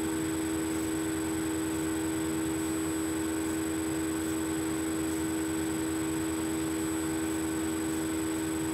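Steady, unchanging hum with a hiss underneath; no separate sounds stand out.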